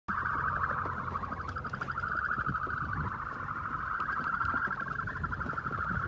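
A crowd of ostrich chicks calling together in stacked plastic crates: a steady, fast-trilling chorus held at one pitch that sounds like a siren or car alarm, with a few faint low knocks.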